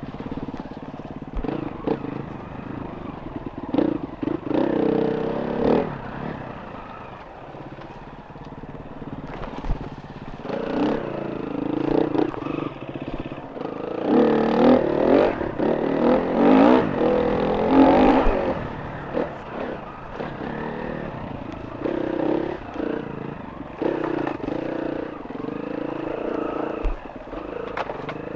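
Enduro motorcycle engine under way off-road, revving up and down with the throttle in repeated surges, loudest about halfway through, with scattered knocks and rattles.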